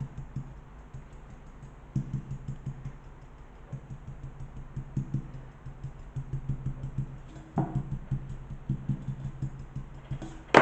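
Stencil brush dabbing paint onto decoupage paper on a plastic bottle: soft, irregular taps, several a second. A sharp knock comes at the very end.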